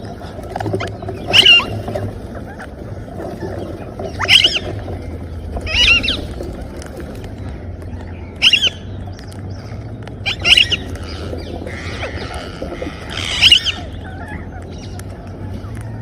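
Parrot squawking: about six loud, short calls a couple of seconds apart, over a steady low hum.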